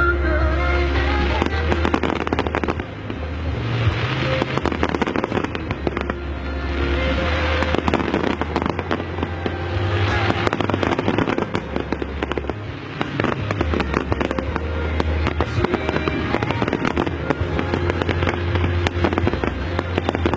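Fireworks bursting and crackling in dense, continuous volleys, with music playing alongside.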